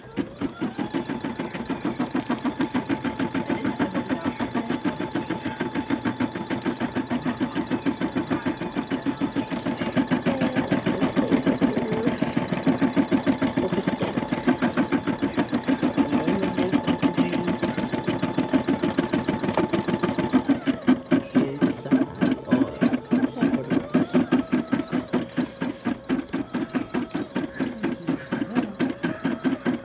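Single-needle home embroidery machine stitching a design, a rapid, even needle rhythm with a faint whine that drops in pitch about two-thirds of the way through.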